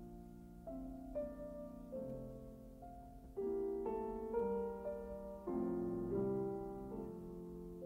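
Piano music played slowly, a new note or chord about once a second, each left to ring.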